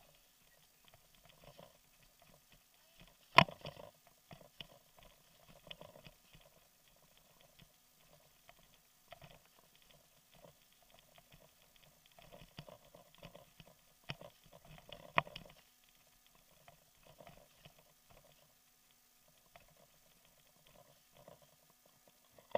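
Bicycle rattling and clicking as it rolls over a bumpy dirt road, heard through its handlebar mount, with a sharp knock about three seconds in and another about fifteen seconds in.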